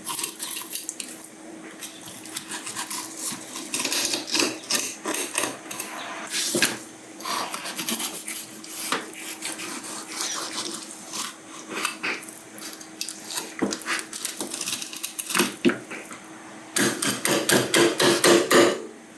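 Irregular clattering and knocking of hard objects being handled, with a louder quick run of knocks near the end.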